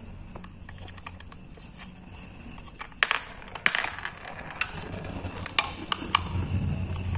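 Plastic toy garbage truck loaded with marbles being handled and moved by hand: irregular sharp plastic clicks and knocks from about three seconds in, with a low rolling rumble building near the end.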